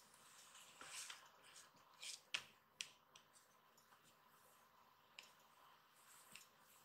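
Kittens' claws and paws scratching and scrabbling on a corrugated cardboard scratcher as they wrestle: a scattering of soft, short scratches and clicks, the sharpest about two and a half seconds in.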